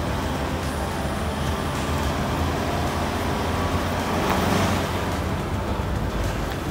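Off-road 4x4 vehicle engines running steadily, a low rumble with a steady hiss over it.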